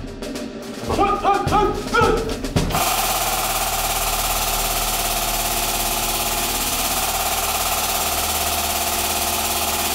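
Dramatic music with drum hits, cut off about three seconds in by a steady, even hiss and low hum: the hydraulic press's pump running as the ram comes down on the black diamond.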